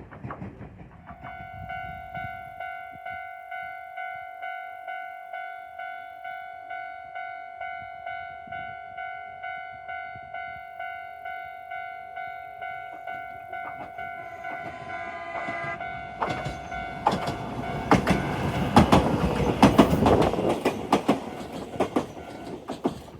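Electronic alarm of a Japanese level crossing (standard warning tone) starting about a second in, a tone that repeats at a steady rhythm a little under twice a second. From about 16 seconds an Alpico 20100-series electric train passes over the crossing, its wheels clattering loudly over the rail joints.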